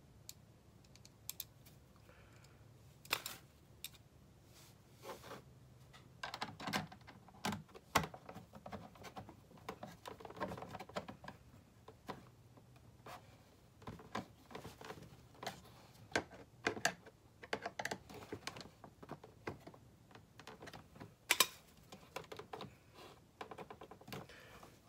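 Irregular small clicks and light knocks of plastic and a screwdriver as a fog light unit is fitted and screwed into its plastic bracket on a car bumper.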